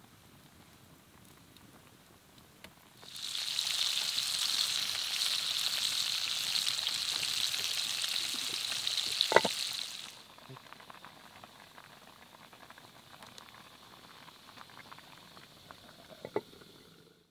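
Stew sizzling and bubbling in an earthenware pot on hot embers: a loud hissing sizzle full of crackles starts suddenly about three seconds in and stops about ten seconds in, leaving faint crackling. Near the end the clay lid knocks lightly onto the pot.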